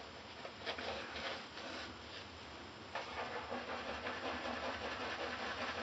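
Badger-hair shaving brush lathering shave cream on the face: a wet scrubbing and swishing. Separate quick strokes at first, then a denser, continuous scrubbing from about three seconds in.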